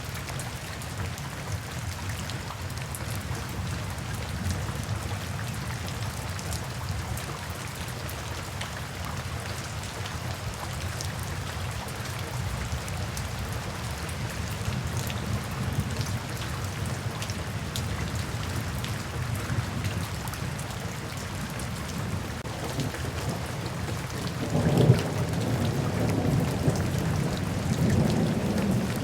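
Steady rain falling, with a low rumble of thunder building about 24 seconds in and continuing to the end.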